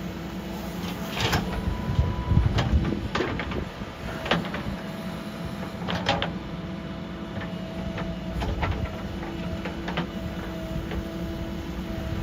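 JCB 3DX backhoe loader's diesel engine running steadily, with irregular sharp clanks and knocks, about one every second, as the machine works.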